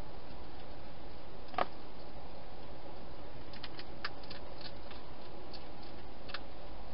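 A wild hedgehog eating inside a clear plastic feeding box: small crunches and clicks as it chews dry food, one louder click about a second and a half in and a quick cluster of them a little past halfway, over a steady hiss.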